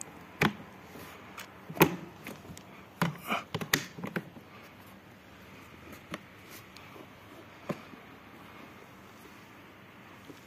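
Hard plastic pet carrier being handled: a series of sharp knocks and clicks from its plastic shell and grille door. There is a quick cluster about three to four seconds in, with single knocks before and after it.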